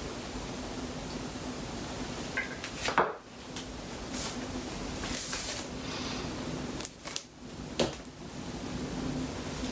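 Jars and containers knocked and set down on a kitchen countertop: a few sharp knocks, the loudest about three seconds in and another near the end, with brief rustling between, over a steady low hum.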